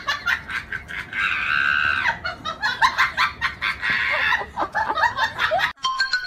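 A high-pitched voice squealing and cackling in quick short calls, with one longer shriek about a second in.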